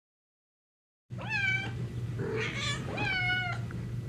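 Domestic cat meowing: two drawn-out meows about a second apart, with a shorter, rougher call between them, starting about a second in. A steady low hum runs underneath.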